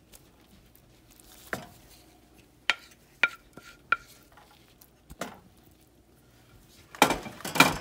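Wooden spoon spreading minced beef over a mashed-potato base in a frying pan: a few separate taps of the spoon against the pan, some ringing briefly, then a louder scraping and pushing near the end.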